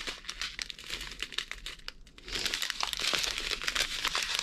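Thin plastic bags of special-shaped diamond-painting drills crinkling and crackling as they are handled and folded, with many small sharp clicks. It eases off briefly about two seconds in, then picks up again louder.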